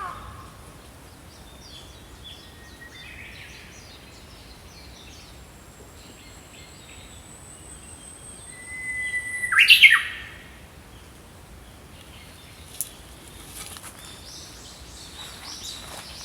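Small songbirds chirping and calling in short scattered phrases, with one much louder, sharp call just before ten seconds in and a cluster of chirps near the end.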